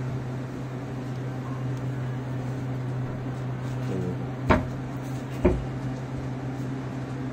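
A steady low mechanical hum, with two sharp knocks about a second apart just past the middle.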